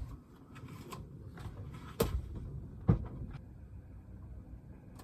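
Two sharp knocks about a second apart, like a lid or hatch being handled on a boat, over a low steady rumble of wind on the microphone.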